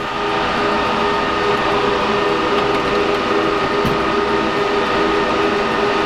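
Rack servers' cooling fans running loud and steady, with several steady hum tones, the servers hot and under full load. A light click about four seconds in.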